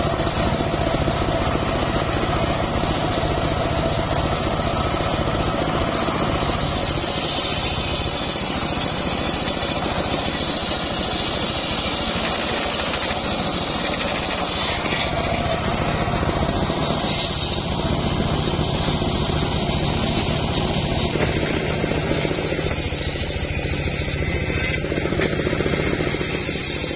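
Sawmill table circular saw ripping a mahogany log lengthwise: a loud, steady machine noise of the spinning blade cutting through the wood.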